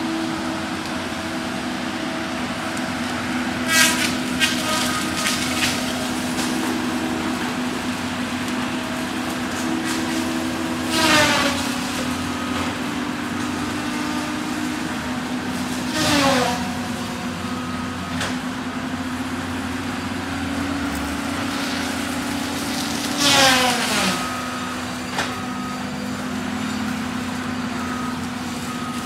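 Cat 573C feller buncher running steadily under its diesel engine, with four loud sweeps falling in pitch over about a second each as its disc saw head slows, biting into trees. The first one is followed by a spray of crackling clicks.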